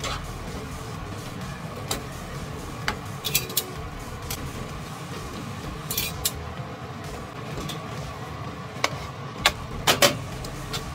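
Metal tongs tossing spaghetti in a frying pan: irregular clinks and scrapes against the pan, the sharpest few near the end, over a steady low hiss.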